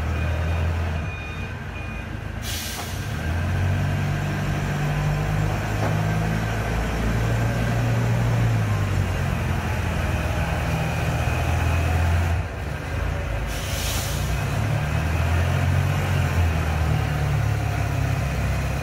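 The engine of a Kaystar 3.5-ton four-wheel-drive off-road forklift running under way, its note rising and falling as the machine drives and turns. Two short bursts of hiss come about two seconds in and again near thirteen seconds, and a faint intermittent beep sounds in the first couple of seconds.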